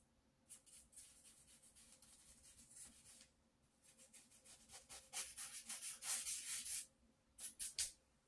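Paintbrush bristles rubbing across paper in quick, repeated short strokes: one run early on, a pause, a louder run in the middle, and a few last short strokes near the end.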